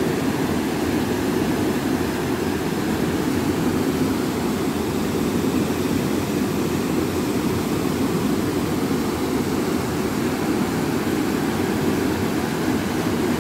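Steady, low rushing of a flooded, rain-swollen river pouring over a weir and churning into white water.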